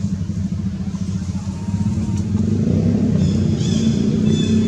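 Steady low engine hum, like a motor vehicle running nearby, getting somewhat louder a little over two seconds in. Brief high-pitched squeaking near the end.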